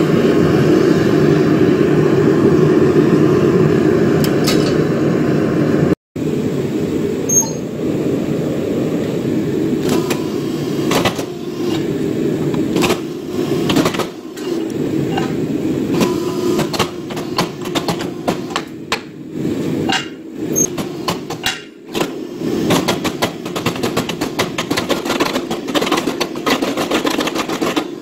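A gas forge running with a steady rushing noise. Then, after a cut, a mechanical power hammer runs and strikes red-hot steel in irregular quick runs of sharp blows over a steady machine noise.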